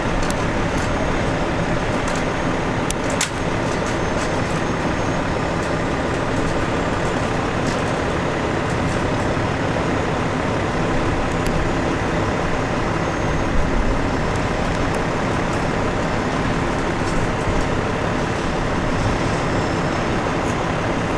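Diesel semi-truck engines idling, running steadily.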